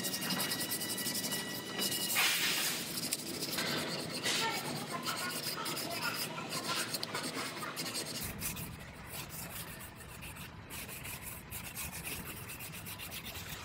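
Sandpaper on a hand sanding block scraping back and forth over cured body filler on a Jeep Wrangler's front fender corner, in a fast run of strokes. The filler is being block-sanded down to shape.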